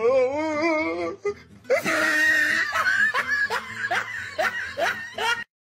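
Hearty laughter: a warbling, wavering laugh at first, then a run of short ha-ha bursts that cuts off abruptly near the end.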